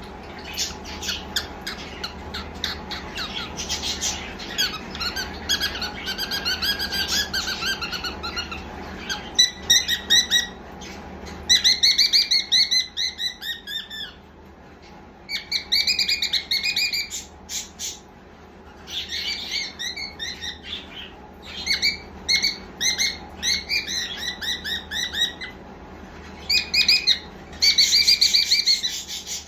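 Cockatiel chattering and warbling in a string of whistled phrases that waver in pitch, broken by short pauses.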